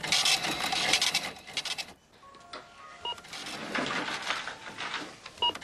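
Supermarket checkout register sounds: a scratchy, rattling run of register noise, loudest in the first two seconds and again toward the end, with two short barcode-scanner beeps, one about three seconds in and one just before the end.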